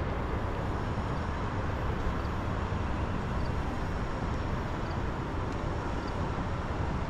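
Steady street ambience of road traffic, an even noise with no distinct events.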